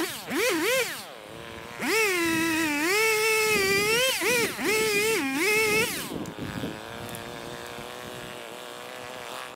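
Two-stroke chainsaw revving and bogging down again and again as it cuts cedar trees, its pitch swinging up and down. About six seconds in it drops back to a steady idle.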